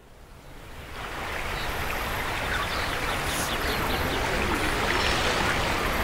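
Flowing river water, a steady rushing that fades in from silence over the first second or so.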